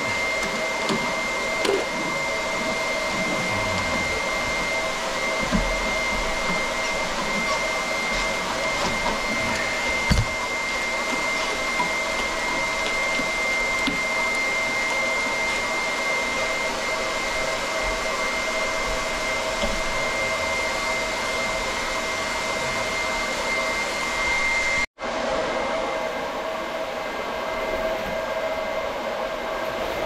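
A small motor running steadily with a high whine over a rushing noise. It cuts out for a moment about 25 seconds in. A few light metal clinks come from pliers working on the water fittings.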